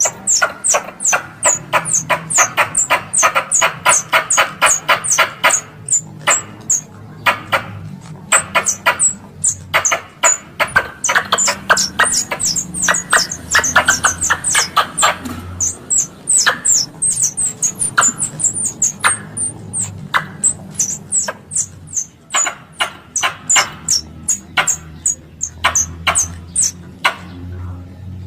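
Squirrel calls used as a hunting lure: long runs of sharp, repeated chirps, several a second, broken by short pauses.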